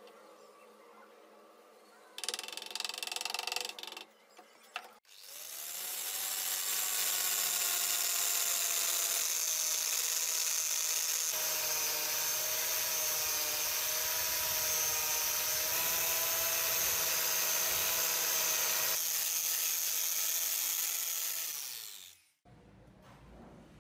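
Blue polishing compound bar rubbed briefly and scratchily across the steel adze blade. About five seconds in, an angle grinder fitted with a buffing pad spins up, runs steadily with a high whine while polishing the compound into the blade, and spins down near the end.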